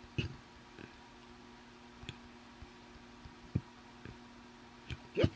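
A person hiccuping: short, deep hiccups a second or more apart, the strongest just after the start, in the middle and at the very end.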